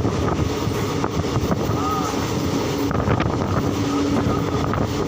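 Moving train running with a steady low rumble, with wind noise on the microphone.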